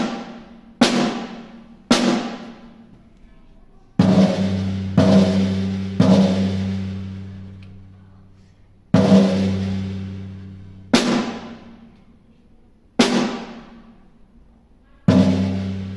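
Single drumstick strokes on a snare drum and a deeper tom-tom, about nine strokes spaced one to two seconds apart, each left to ring out. The deeper drum's strokes hold a long low ringing tone, and the snare strokes are brighter and die away sooner.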